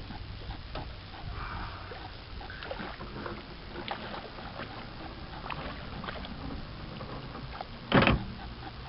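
Light, irregular knocks and clicks of a wooden sculling oar working in its plastic mount on a small wooden boat, over a low wash of water; one louder thump about eight seconds in.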